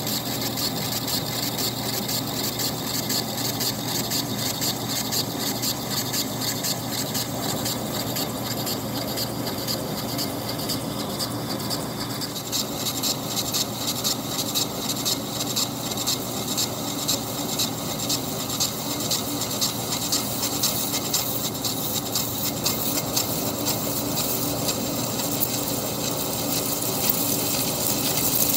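Monarch lathe running while a cutting tool takes a facing cut on a heat-treated and tempered 4140 steel sheave, a steady scraping cut over the machine's hum. From about halfway through, a fast crackle of breaking chips joins in.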